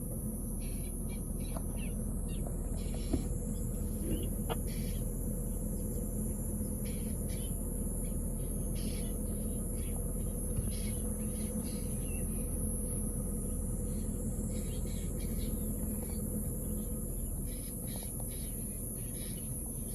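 Honda CR-V engine running steadily at low revs, under a steady high drone of insects, with short scattered chirps throughout.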